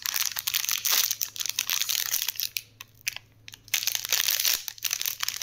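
Plastic ice cream wrapper crinkling and crackling as it is handled and torn open by hand, with a pause of about a second midway.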